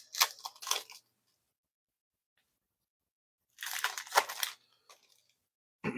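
Foil wrapper of a football trading-card pack being torn open and crinkled, in two short crackly spells, the second about three and a half seconds in.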